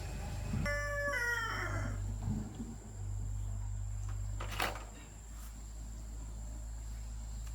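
A rooster crowing once, about a second and a half long, ending in a falling note, over a steady low hum. A short sharp knock comes about four and a half seconds in.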